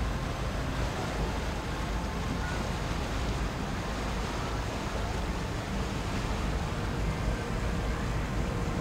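Wind buffeting the microphone over the steady drone of a harbour tour boat's engine as the boat passes close by.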